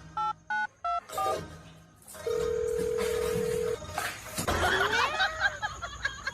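A quick run of short two-tone touch-tone keypad beeps, then a steady electronic tone for about a second and a half. Near the end comes a wavering cry that bends up and down in pitch.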